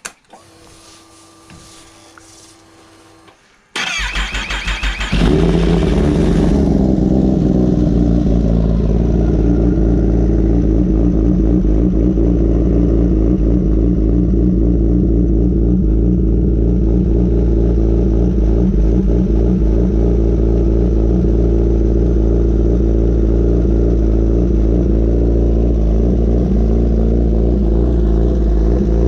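2021 Kawasaki Ninja ZX-10R inline-four engine on a cold start. After a few seconds of faint whine, the starter cranks for about a second, the engine catches and then settles into a steady, loud idle.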